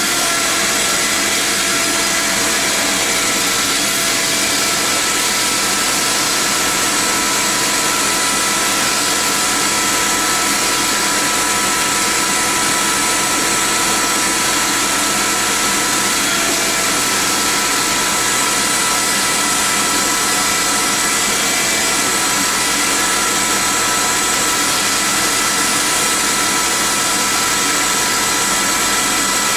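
Canister vacuum cleaner running steadily with a constant motor whine, its hose sucking up tile debris and dust from a bare subfloor.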